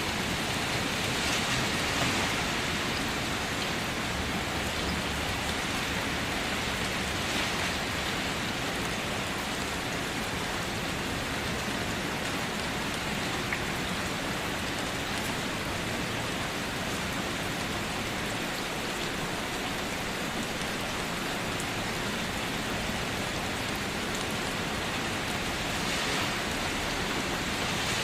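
Steady rain falling on a car, heard from inside the car as an even patter of drops on the body, swelling slightly near the start and again near the end.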